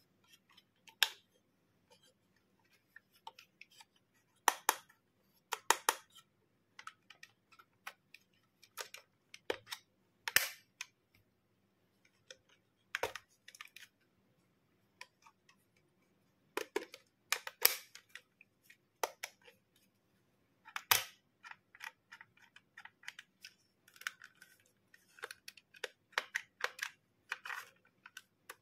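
Irregular sharp clicks and taps of a small plastic toy camera being handled: fingertips and nails on its hollow plastic shell and its parts pressed, sometimes in quick clusters of two or three.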